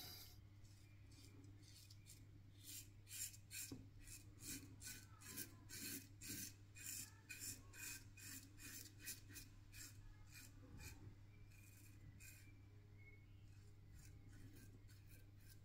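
Faint scratchy strokes of a RazoRock Hawk V2 single-edge safety razor with a Feather ProGuard blade cutting stubble through lather on the cheek, on the first pass with the grain. Quick short strokes come about two or three a second and grow fainter near the end.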